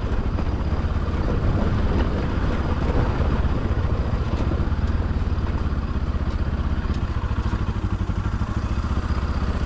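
Bajaj Pulsar motorcycle's single-cylinder engine running steadily as the bike rides along a rough dirt track, heard from on the bike.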